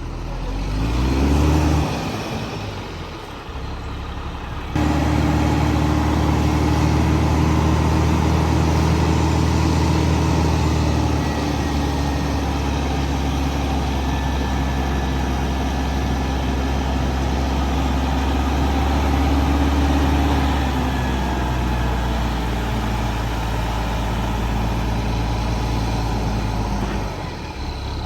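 Heavy truck engine delivering a load of sand: it revs up with a rising pitch, then runs at a steady raised speed for most of the time before easing off near the end.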